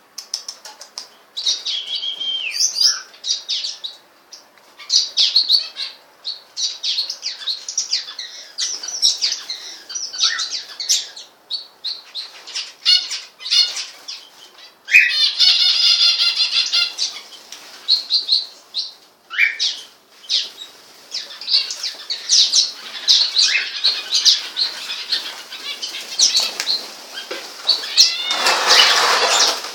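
Small pet cage birds chirping and calling, many short high notes, with a fast trill about halfway through and a burst of wing flapping near the end.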